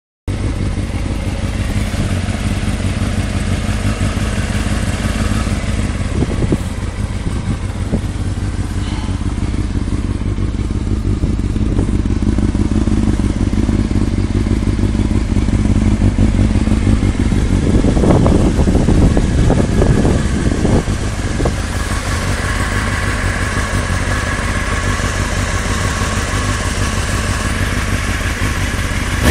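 Honda CBR600F motorcycle's inline-four engine running steadily with a knocking noise, the 'dodgy knocking' the bike is being checked for. A cluster of louder knocks comes about two-thirds of the way through.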